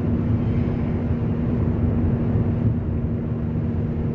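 Steady road and engine noise heard inside the cabin of a Fiat Linea driving at highway speed: an even low rumble with a constant hum.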